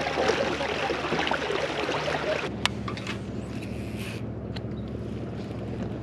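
Water rushing along a kayak hull under way, over the low steady hum of a MotorGuide Xi3 trolling motor. About two and a half seconds in the rush of water drops away as the kayak slows, and a single sharp click follows.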